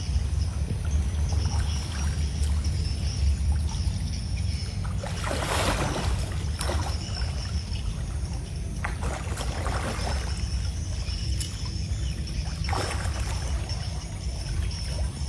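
Pond water sloshing and splashing around a man wading chest-deep while he pulls on a taut line with a fish hooked, with louder splashes about five to six seconds in, around nine to ten seconds and near thirteen seconds, over a steady low rumble.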